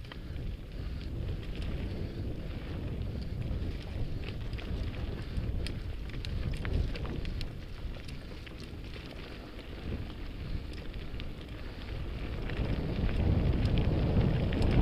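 Wind buffeting an action camera's microphone while riding a mountain bike on a dirt trail, with tyres on loose gravel and small clicks and rattles from the bike. The wind noise grows louder in the last few seconds.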